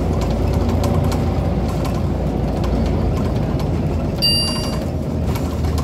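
Scania CN94UB Omnicity bus's diesel engine and road noise, heard from inside the saloon as the bus runs steadily along. About four seconds in, a short electronic beep sounds.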